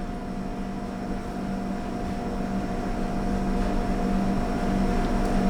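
Steady machine hum with a low drone and a fainter higher tone, slowly growing a little louder.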